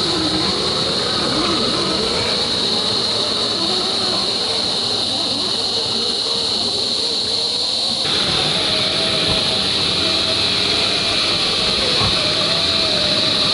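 Axial SCX10 III 1/10-scale rock crawler's 35-turn brushed motor and drivetrain whining as it crawls, the pitch wavering up and down with the throttle, over a steady high-pitched hiss. About eight seconds in the whine becomes steadier and a little higher.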